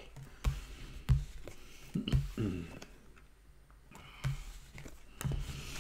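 Tarot cards being gathered off a woven cloth placemat and squared onto the deck: a few soft slides and light taps and clicks at irregular intervals, with a short quiet pause midway.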